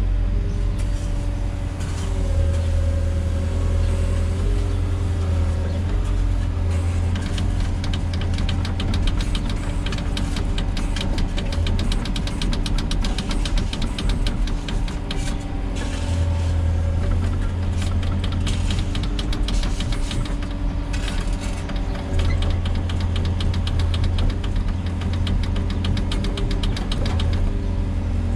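Diesel engine of a Volvo EWR150E wheeled excavator running steadily, with a rapid rattle coming and going through the middle stretch.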